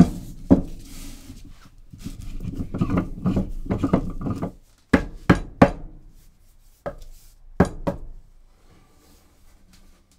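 Wooden finishing press being handled and set down on bricks on a wooden workbench, wood knocking against wood and brick. A cluster of knocks and thunks, then several single sharp knocks up to about eight seconds in, after which only faint rubbing remains.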